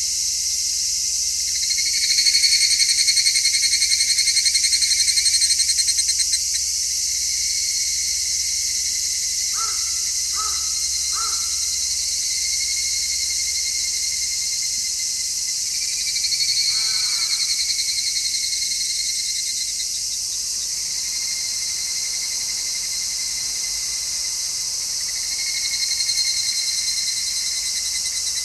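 Dense chorus of cicadas shrilling steadily in midsummer heat, with a nearer cicada's pulsing song swelling louder three times. A few short animal calls: three quick notes about ten seconds in and one falling call around seventeen seconds.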